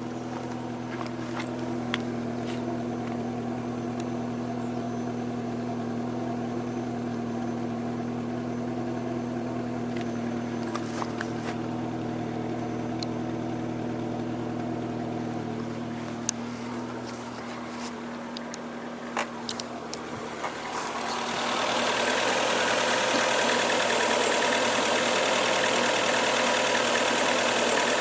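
Fiat Stilo 1.6 16V four-cylinder petrol engine running steadily at idle, with a few light clicks. About three-quarters of the way in it becomes louder and noisier and stays that way. The engine has a failing lambda (oxygen) sensor, fault code P0130.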